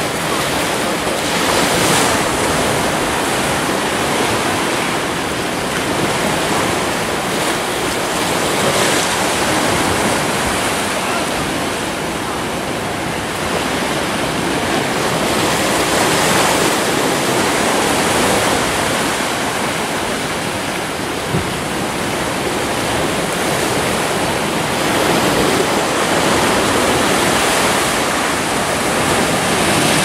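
Sea waves washing in among rocks on the shore: a continuous surf wash that swells and eases gently every several seconds.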